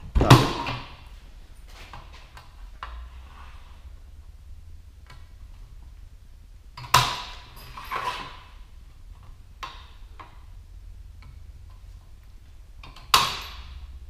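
Hand sheet-metal notcher snapping shut through the edge of sheet metal, making index notches: three sharp cuts, one near the start, one about seven seconds in and one near the end, each with a brief metallic ring. A softer snap follows the middle one, and light clicks of the tool and metal come between.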